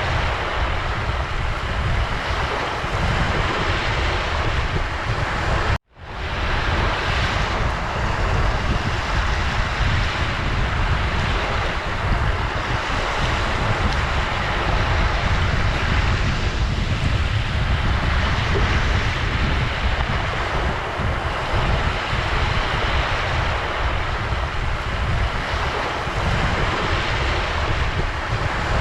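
Ocean surf: a steady wash of waves with a deep rumble. About six seconds in, the sound cuts out for an instant and fades back up, as at a loop or edit point.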